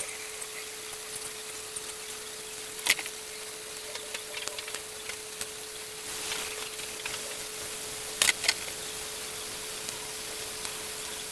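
Kitchen faucet running a steady stream into a stainless sink while cotton towels are rinsed under it by gloved hands, with a steady faint hum underneath. A sharp knock about three seconds in and two more close together near eight seconds.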